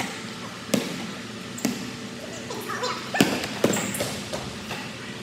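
A basketball bouncing on a hardwood gym floor, a few uneven bounces that echo in the hall.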